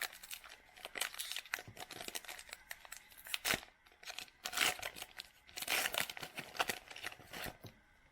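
Foil trading-card pack wrapper being torn open and crinkled by hand, a run of sharp crackling rips in clusters that stops shortly before the end.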